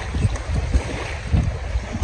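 Wind buffeting the microphone in irregular low gusts, over a steady rushing hiss of wind.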